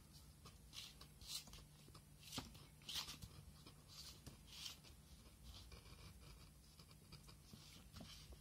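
Faint scratching of a fine craft-knife blade cutting through paper in short, separate strokes, over a low steady hum.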